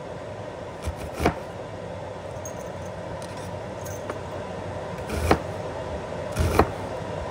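Chef's knife slicing a red onion on a wooden cutting board: a few irregular sharp knocks as the blade meets the board, over a steady kitchen hum.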